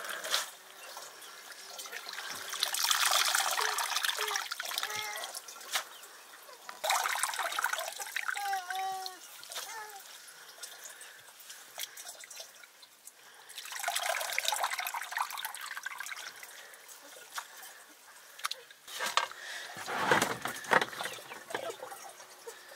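Water pouring and splashing in four bursts of a few seconds each, with short chirping calls about eight seconds in.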